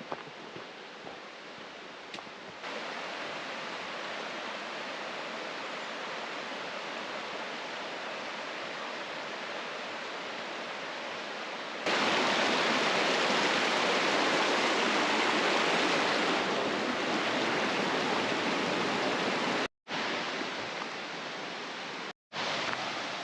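Steady rushing of a flowing mountain creek. It gets louder in two steps, about 2.5 s in and about 12 s in, then cuts out briefly twice near the end.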